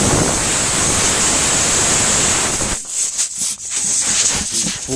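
Air hissing loudly out of a punctured car tyre through the plug hole as the plug insertion tool is pulled out. The steady rush lasts about three seconds, then breaks into shorter spurts of hiss.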